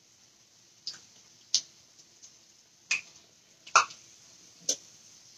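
Salmon croquette frying in hot oil in a skillet: a faint sizzle with five sharp, irregularly spaced pops and clicks from the oil and the metal spatula in the pan.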